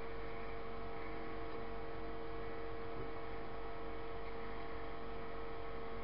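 Steady hum of a running desktop computer: a constant drone with a couple of fixed tones over a faint hiss.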